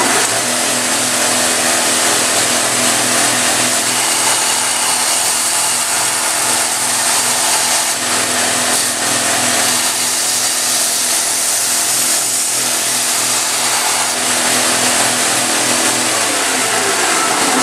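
Shop-built 2x72 belt grinder running at its second step-pulley speed, with a steady motor hum under a loud belt hiss as a knife blade is ground on it. Near the end the hum falls in pitch as the grinder winds down.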